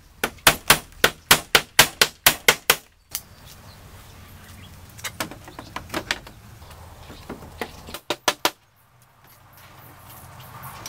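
Hammer striking a bamboo joint: a quick run of about a dozen sharp knocks, roughly four a second, then two shorter groups of lighter knocks.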